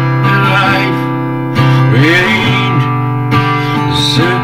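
Background song with acoustic guitar playing steady chords, in a short gap between sung lines.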